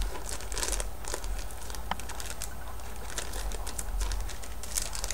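Clear plastic zip-lock sample bag crinkling and crackling in the hands as it is handled and pulled open, over a low steady hum.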